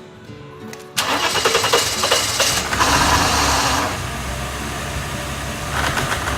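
1992 Mercedes-Benz 300E's 3.0 L straight-six being cranked by the starter, pulsing for about a second and a half, then catching with a brief rise in revs and settling into a steady idle.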